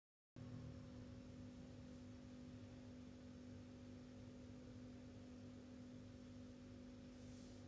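Near silence: a faint, steady low background hum with a constant tone, cutting in from dead silence just after the start. There is a faint brief hiss near the end.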